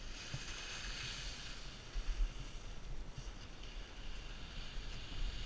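Skis hissing and scraping over packed snow, with wind rumbling on the microphone.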